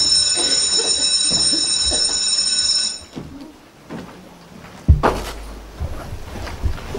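Electric school bell ringing steadily and stopping abruptly about three seconds in. About two seconds later comes a single loud thud, then faint knocks and shuffling.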